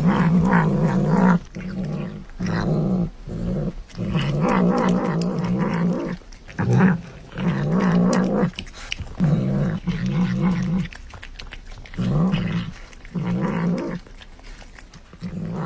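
A cat growling in a string of low, wavering bouts while it eats. Each bout lasts a second or so, with short breaks between.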